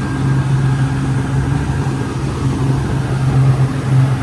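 Fishing boat's engine running at a steady speed, with a constant low hum.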